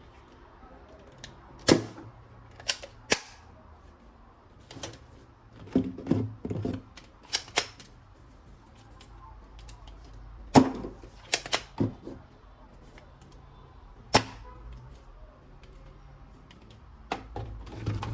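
Sharp plastic clicks and snaps from handling toy guns, irregularly spaced and some in quick pairs, with brief rustling and handling noise between them.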